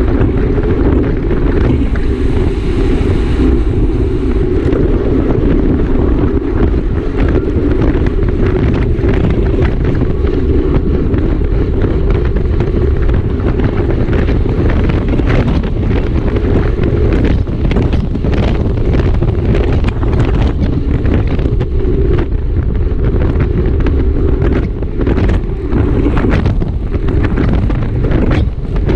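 Wind buffeting a camera microphone on a bicycle ridden at race speed: a loud, steady low rumble, with a brief brighter hiss a couple of seconds in and frequent short knocks from about halfway on.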